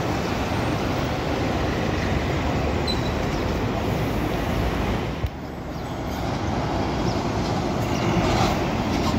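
City bus engines and street traffic running steadily, with road noise. There is a sharp click about five seconds in, the noise drops briefly, then it builds up again as another bus comes through.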